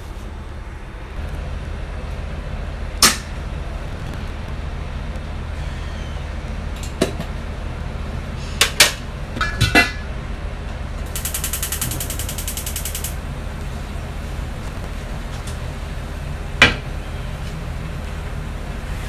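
Kitchen work over a steady low hum: several sharp knocks and clinks of dishes, a glass container and cookware on the counter and stove, a cluster of them around eight to ten seconds in. A brief burst of rapid high ticking comes about eleven seconds in.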